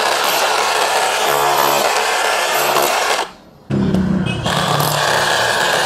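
Bosch GBH 187-LI cordless rotary hammer in hammer-only mode, chiselling into a concrete floor with a loud, continuous hammering. It cuts out for about half a second a little after three seconds in, then starts again.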